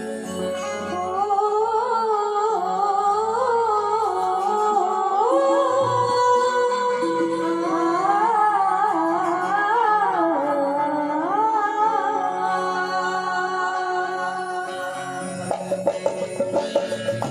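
A woman's voice singing a slow, wordless melodic opening to a devotional stavan, gliding from note to note over a steady held keyboard drone. Drums come in near the end.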